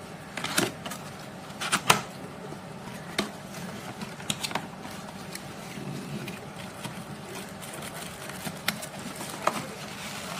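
A cardboard box being opened by hand: irregular crackles and clicks of cardboard flaps and plastic wrapping being handled, with the sharpest ones in the first two seconds.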